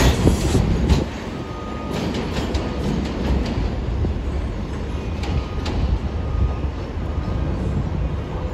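A New York City Subway 4 train of R142-family cars running away along elevated track. Its wheels clatter loudly for about the first second, then settle into a steadier, lower rumble as it draws off.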